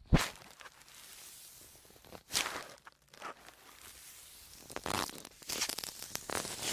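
Sponges handled close to the microphone: a sharp knock just after the start, a crunchy squeeze about two seconds in, then a run of crackling, crunching scrunches through the last two seconds.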